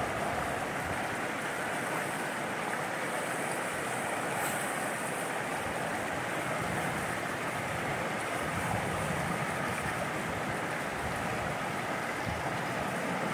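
Shallow rocky mountain river flowing over small cascades: a steady, even rush of water.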